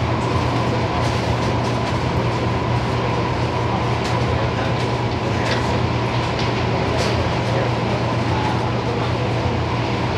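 Hong Kong MTR train running: a steady low rumble and hum with a few faint clicks.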